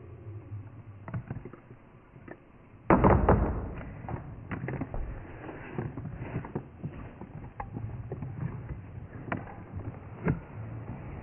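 Slowed-down sound of a bat flying in a room: a sudden loud rush of low rumbling noise about three seconds in, then a run of irregular sharp clicks, the bat's echolocation calls and wing noise brought down in pitch by the slow motion.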